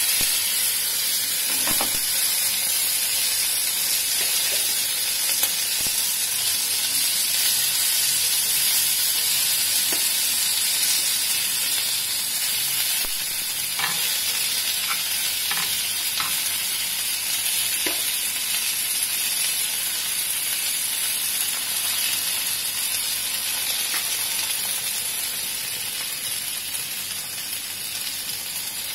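Food sizzling steadily on a hot cast-iron sizzler plate as paneer, rice and vegetables are spooned onto it, slowly fading toward the end. A few faint clicks of the serving spoon against the plate, around the middle.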